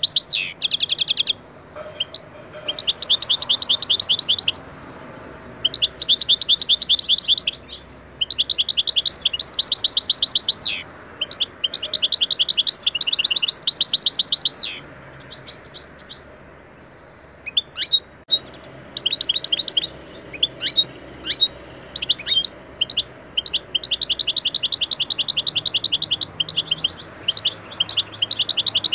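European goldfinch singing: runs of fast, high trilled phrases, each a second or two long with short pauses between. About two-thirds of the way through the runs give way to scattered single call notes before the trills resume.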